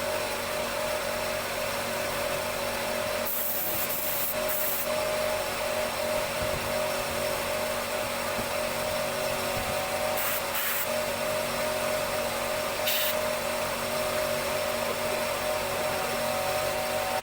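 A power tool's electric motor running steadily with a fixed whine, with three short high hisses along the way.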